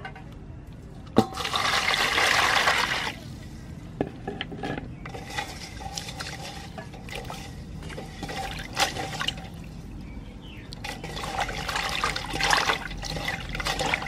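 Water poured into a stainless steel basin over small raw shrimp for about two seconds, just after a sharp metal clink. Then hands slosh and rub the shrimp in the water to wash them, splashing harder near the end.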